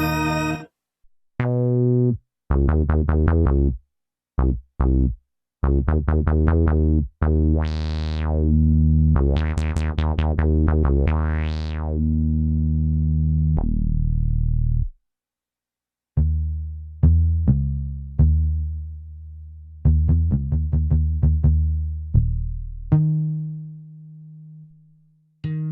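Kurzweil K2vx synthesizer presets being played from the keyboard: notes and chords with short gaps between phrases. Around the middle the tone brightens and dulls in sweeps. Later come runs of short notes that die away quickly.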